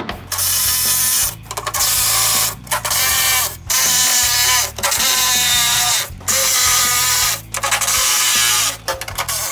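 Cordless impact driver running in a series of about seven bursts of roughly a second each, backing out the bolts that hold a VW Beetle floor pan to the body from underneath.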